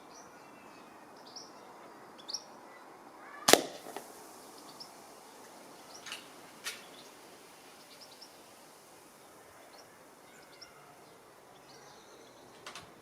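Weihrauch HW30 spring-piston air rifle firing once about three and a half seconds in, a single sharp crack that rings briefly. Fainter clicks and short bird chirps come and go around it.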